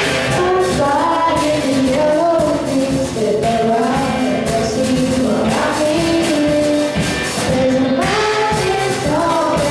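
A band playing a song, with sung vocals carrying the melody over a steady drum beat.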